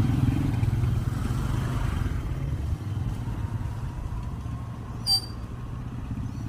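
An engine idling steadily with a low, pulsing rumble, a little louder in the first couple of seconds. A brief high chirp about five seconds in.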